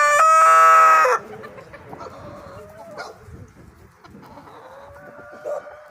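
A rooster crowing, its long held final note ending abruptly about a second in; after it, chickens cluck softly.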